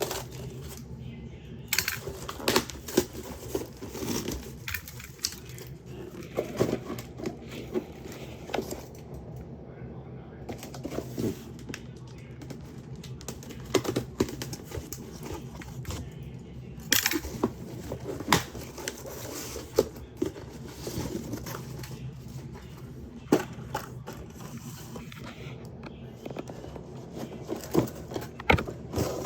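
Hands unpacking and handling toys: irregular clicks and clatter of small plastic pieces with crinkling and rustling of packaging, over a steady low hum.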